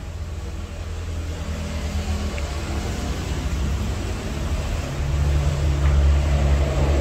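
Low motor-vehicle engine rumble that grows louder towards the end.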